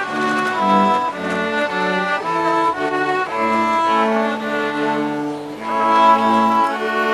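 A small chamber ensemble playing a classical melody, with violin and cello bowing sustained notes that change about every half second to a second.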